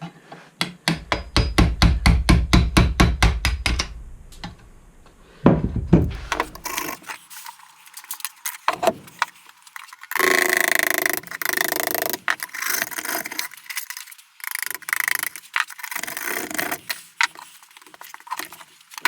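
Rapid tapping, about six strikes a second for a few seconds, then a heavier knock, then bursts of scraping: hand tools chipping and scraping old gasket and hardened refractory cement out of a wood stove door's gasket channel.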